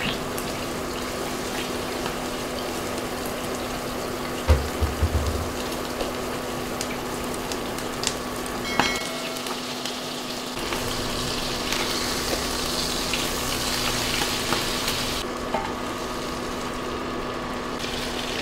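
Ground-beef Salisbury steak patties sizzling in hot oil in a frying pan, a steady frying hiss as the outsides are seared crisp. A few soft knocks come about four and a half seconds in.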